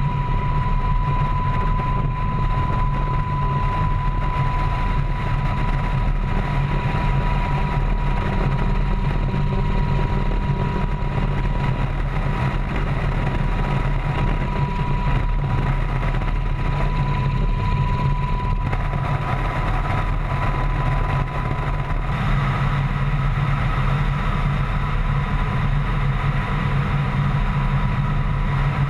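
UH-60 Black Hawk helicopter's twin turboshaft engines and rotor running steadily, heard from on board: a heavy low drone with a constant high whine on top.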